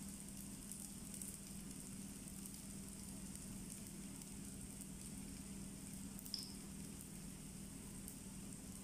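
A ring of sfenj yeast dough frying in shallow oil in a pan: a faint, steady sizzle with fine crackles over a low steady hum, and one short sharp pop about six seconds in.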